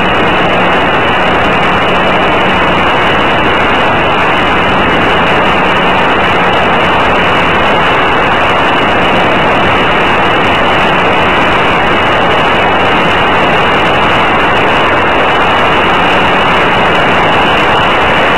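Senior Telemaster radio-controlled model airplane in steady flight, heard from a camera on board: a loud, unbroken rush of propeller and wind noise with a faint steady hum underneath.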